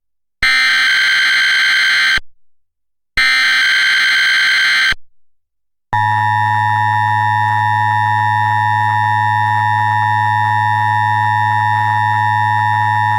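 Emergency Alert System SAME header: two short, harsh digital data bursts of under two seconds each, then about six seconds in the steady two-tone EAS attention signal starts and holds, opening a Required Monthly Test.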